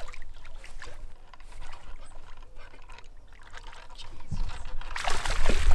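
A hooked fish splashing and thrashing at the water's surface as it is played on the line, with a louder burst of splashing about five seconds in, over a low wind rumble on the microphone.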